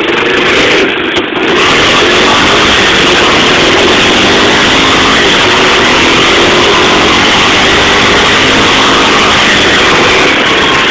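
Honda FourTrax 300 ATV's single-cylinder four-stroke engine running steadily under way, with a heavy rush of wind and travel noise over it.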